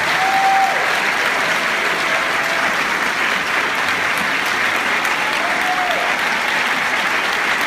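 Audience applauding steadily at the end of a choir's song, with a few short calls rising over the clapping.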